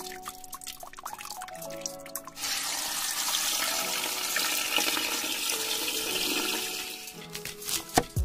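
Water pouring in a steady stream over pork bones in a pot, starting about two and a half seconds in and tapering off around seven seconds, over background music. A knife chops through green onions on a wooden board near the end.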